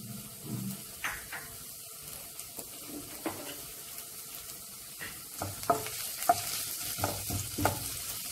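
Chopped ginger sizzling steadily in hot oil in a kadai. From about five seconds in, a wooden spatula stirs it, with sharp scraping clicks against the pan.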